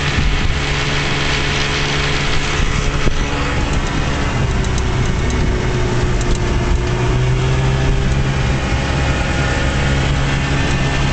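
1956 Johnson Javelin 30 HP two-cylinder two-stroke outboard running steadily at high speed, pushing the boat on plane, over the rush of water off the hull.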